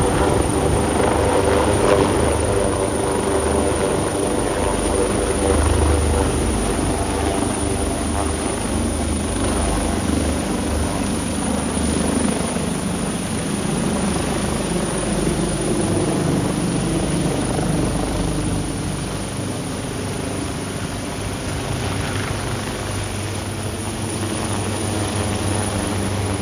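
Helicopter running steadily, with a constant engine and rotor noise.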